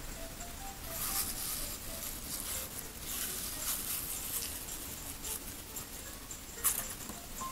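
A serrated blade cutting and scraping around the core of a raw apple, with crisp crunching and rasping of the flesh in short spells and a sharp snap near the end as a piece of core breaks free.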